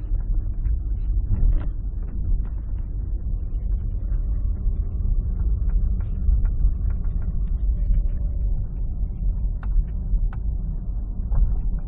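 Hyundai Accent on the move, a steady low road rumble in the cabin, with short scattered creaks and clicks from the driver's door, several of them near the end. The creaking is the driver's-door squeak the owner is trying to track down.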